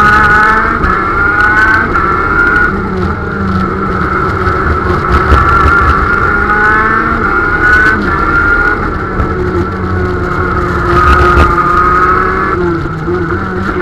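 A 125cc two-stroke KZ shifter kart engine heard onboard at full racing pace, loud and high-pitched, its pitch climbing again and again as it accelerates and dropping back between climbs.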